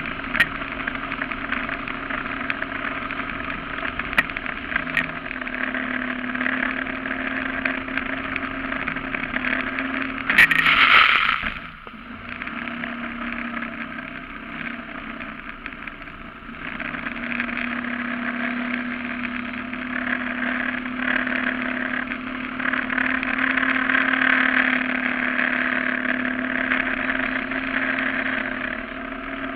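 Mud motor on a flat-bottom mud boat running under way, a steady engine drone with water noise. About ten seconds in a brief loud burst of noise cuts across it. The engine note then eases off for a few seconds and comes back up and holds.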